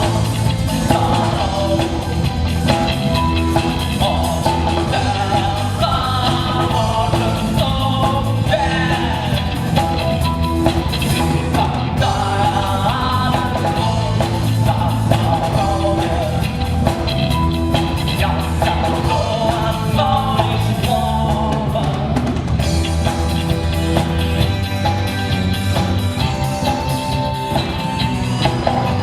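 A rock band playing a song with a singer over a drum kit, steady and loud throughout.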